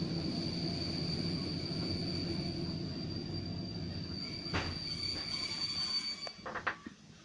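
Train coming to a stop, heard from inside the carriage: a steady rumble of the running gear with a steady high-pitched squeal of the wheels under braking. The squeal ends about six seconds in, a few sharp knocks follow as the train halts, and the running noise dies away.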